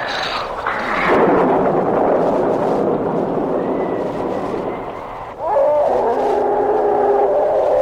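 Horror sound effects: a rushing, wind-like noise, then from about five seconds in a loud, wavering, animal-like howl with several tones at once.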